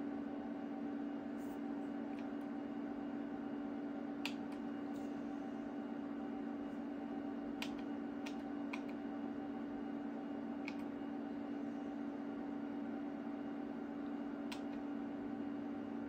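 Steady hum of a rack of running HP bench test instruments, with about six sharp clicks of front-panel keys being pressed.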